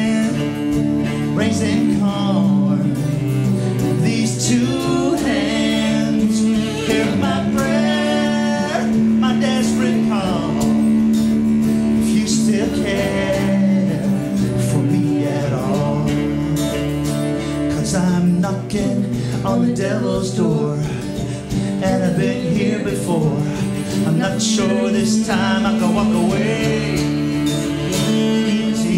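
Acoustic folk song played live on acoustic guitar and cello, steady and unbroken.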